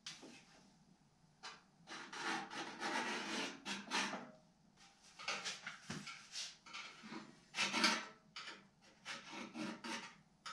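Sheet steel scraping and rubbing against sheet steel in irregular strokes, some over a second long, as a filler panel is worked into place on a 1932 Ford grille shell and scribed around.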